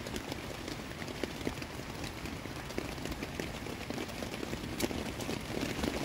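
Steady rain falling on a tarp, an even hiss with scattered sharp ticks throughout.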